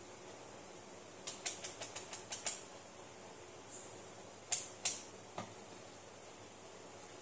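A run of about eight quick clicks over about a second, then about two seconds later two louder clicks and a softer one. These are the detents of a digital multimeter's rotary range switch being turned by hand.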